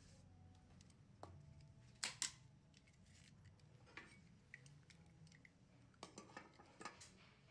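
Sharp clicks and light taps of hand tools (pruning shears and a box cutter) and a small plastic pot being picked up and set down on a hard tabletop. The two loudest clicks come a quarter second apart about two seconds in, with a run of smaller clicks near the end.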